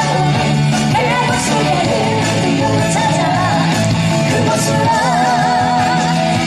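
Live trot medley: a woman singing a melody over an upbeat backing track through a loud PA. About five seconds in she holds a long note with wide vibrato.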